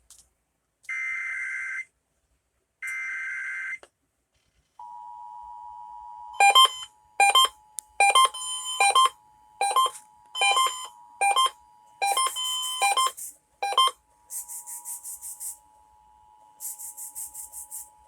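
Emergency Alert System tones on broadcast radio: two one-second bursts of the SAME digital header data, then about five seconds in the steady two-tone EAS attention signal begins. From about six seconds loud, evenly spaced beeps sound over the attention tone, and near the end come two short bursts of high, rapid buzzing.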